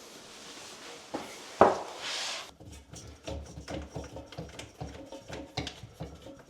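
Sink drain pipe parts being worked loose and pulled out by hand: a sharp knock about a second and a half in, then a run of small clicks, knocks and rattles.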